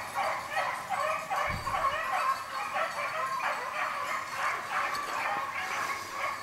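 A pack of beagles baying, several hounds giving tongue at once in a steady run of overlapping calls.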